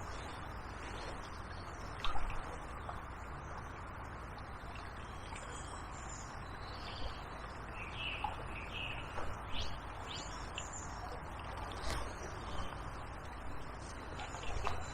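Small birds chirping with short high calls, clustered in the middle, over a steady outdoor hiss. A single knock sounds about two seconds in.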